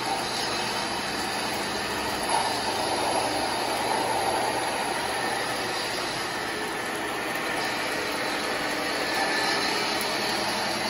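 Steady running noise from O-gauge model railroad equipment: an even hiss and rumble without a clear beat.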